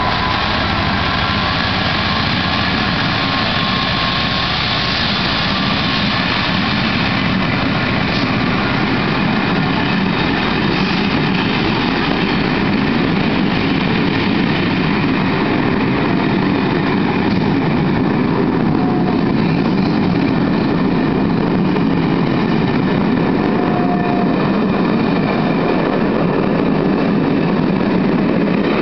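A Class 67 diesel locomotive pulls a passenger train away from a station while the coaches roll past on the rails. At first there is an engine whine, which fades after a few seconds. From then on the steady rumble of the coaches rolling over the rails grows heavier as the train gathers speed.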